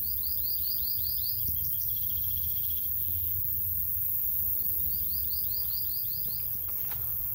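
Forest ambience: a bird sings a quick run of about eight falling chirps twice, with a shorter trill between, over a steady high insect buzz and a low rumble.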